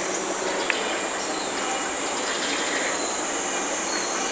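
Steady outdoor background with a continuous high-pitched insect drone. A faint tick comes about two-thirds of a second in.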